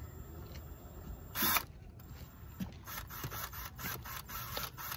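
Ryobi cordless drill boring a small pilot hole into a broken steel Watts link stud for a stud extractor: the bit scrapes and chatters against the metal in irregular short clicks, with one louder rasp about a second and a half in.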